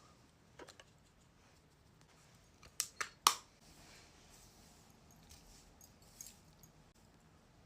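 Makeup products being handled: a few small clicks and taps, with three sharp clicks in quick succession about three seconds in, the last the loudest, over quiet room tone.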